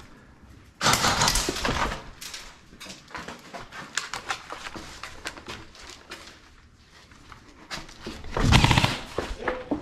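Two rapid bursts of airsoft gunfire, one about a second in and a second near the end, with scattered clicks and knocks between them.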